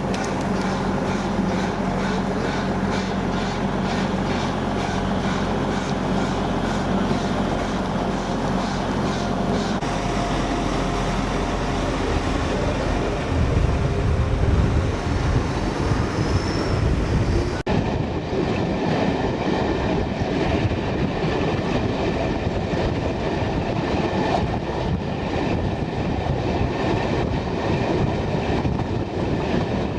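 A railway train running along the track, its wheels clattering rhythmically over the rail joints. The sound changes abruptly about two-thirds of the way through to a different stretch of train noise.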